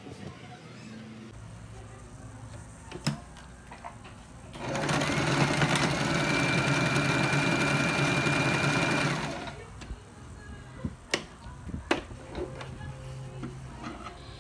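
Electric domestic sewing machine running for about five seconds in the middle, stitching a seam through satin fabric; its motor whine rises briefly as it speeds up, then holds steady until it stops. A few light clicks come before and after.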